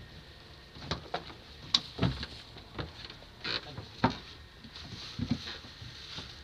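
Scattered knocks and thuds on the wooden deck of a small fishing boat, irregular and about one a second, as people step about in sandals and move fishing gear.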